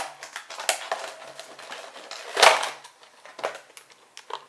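Rigid plastic blister packaging of a Pokemon figure pack being handled: irregular clicks and crackles, with one louder, longer crackle about two and a half seconds in.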